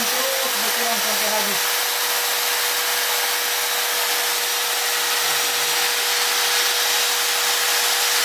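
Corded electric drill of about 600 watts running steadily at full speed with no letup, drawing power from an inverter as a test load.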